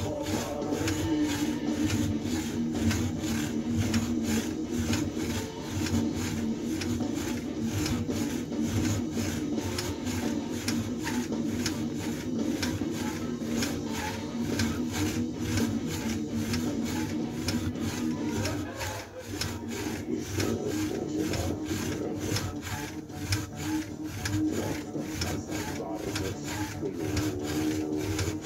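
A Bullworker exerciser worked in repeated crunches: its spring-loaded telescoping tube compresses and springs back over and over, giving a rhythmic scraping, rubbing sound.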